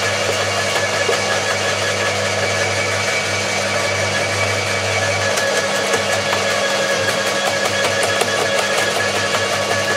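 Electric roller garden shredder (Atika LH 2500) running with a steady motor hum while thuja hedge branches are fed in and crushed. In the second half, sharp cracks and snaps of the wood being broken come more often.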